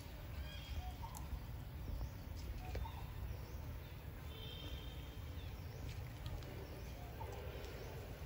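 Outdoor forest ambience: a steady low rumble with faint, scattered short chirps and a few soft clicks.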